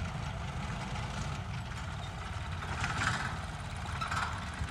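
John Deere 5310 tractor's three-cylinder diesel engine running steadily as a low rumble under load, pulling a working super seeder. There are faint, brief higher sounds about three and four seconds in.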